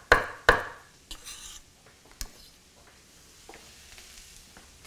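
Utensil scraping and stirring diced vegetables in a hot skillet: two sharp scrapes in the first half second and a softer one about a second in, over a faint sizzle.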